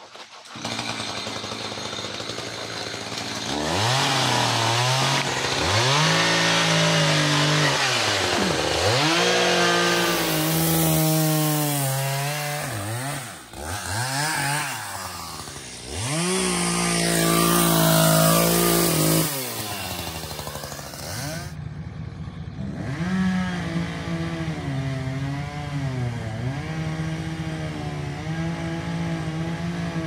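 Chainsaw revving and cutting, its pitch sagging under load in each cut and climbing again as it frees. About 21 seconds in it gives way to a pickup truck's engine running, heard from inside the cab, with a couple of small rises in engine speed.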